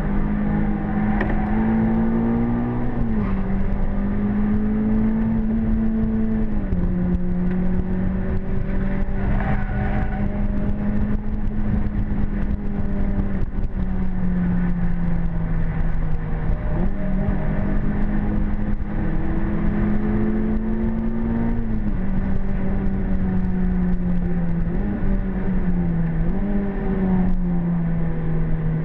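Renault Clio 197's 2.0-litre four-cylinder engine heard from inside the cabin, pulling hard on a track lap. Its pitch holds steady and dips briefly several times as the revs drop, over road and wind noise.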